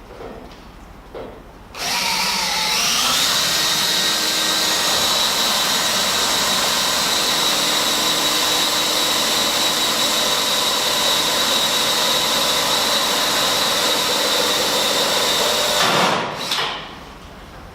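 Electric drill motor spinning up with a rising whine, running steadily under load for about fourteen seconds, then winding down and stopping.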